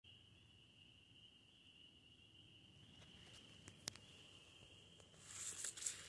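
A faint, steady high-pitched tone with a single click partway through, then about five seconds in, footsteps begin crunching through dry fallen leaves.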